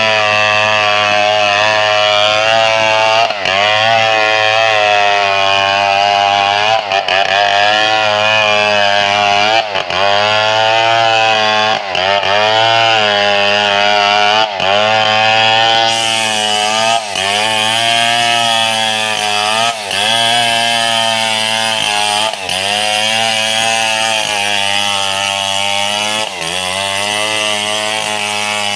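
Two-stroke chainsaw cutting lengthwise through a mahogany log, held at high revs. Its pitch dips briefly and recovers every two to three seconds as the engine bogs under the load of the cut.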